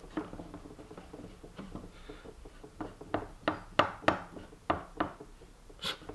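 Metal tools and parts clicking and knocking as a threaded rear trailing arm is twisted to length by hand. The knocks are scattered at first and come about twice a second from around three seconds in.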